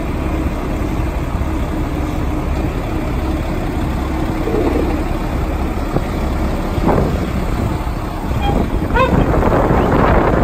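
Diesel engine of heavy Komatsu tracked earthmoving machinery running steadily at close range, with a few short metallic knocks in the last few seconds as the loose track is worked.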